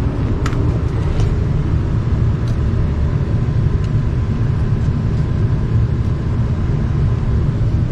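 Steady low rumble of a running Lennox HVAC package unit during a condenser-fan test, with a few light clicks in the first second or so.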